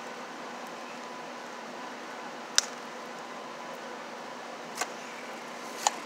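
Three sharp clicks of needle-nose pliers working electrical wires at a plastic electrical box, the first about two and a half seconds in and the loudest, the others near the end. Under them is a steady hiss with a faint hum.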